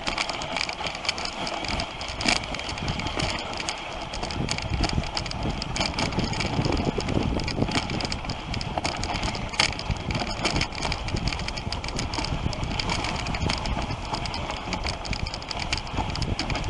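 Dog sled running over a snow trail: a steady hiss and scrape of the runners on the snow, with many small clicks and knocks from the sled.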